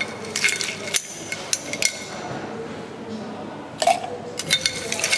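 Ice cubes and a metal spoon clinking against a glass mason jar as the ice is spooned in. There are a few sharp clinks in the first two seconds and another quick cluster about four seconds in.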